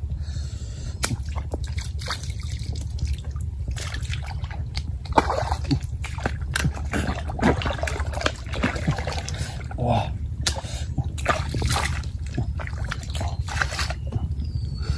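Hands digging and scooping through wet mud and shallow water: irregular squelching, sloshing and splashing, broken by many sharp clicks, over a steady low rumble.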